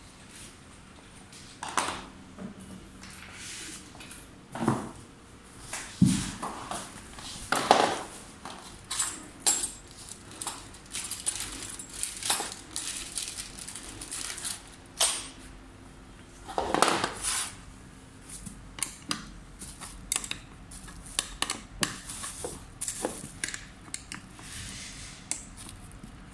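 Hands handling scooter parts and their plastic packaging: irregular crinkling of plastic wrap and bags, with scattered clicks and light clinks of small hard parts.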